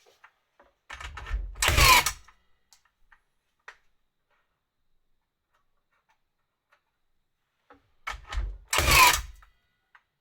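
Milwaukee M18 FFN21 cordless framing nailer firing twice, about seven seconds apart: each shot is a short mechanical run-up ending in a loud, sudden drive stroke as a nail goes into wood.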